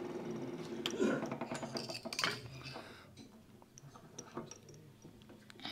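Scattered light metallic clinks and taps as tools and fittings are handled at a small wood lathe.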